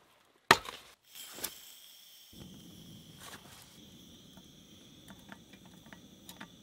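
A sharp, loud knock about half a second in, then a canister camp stove burning with a steady low hiss from about two seconds in, while a metal cook pot is set on the burner with a few light clinks.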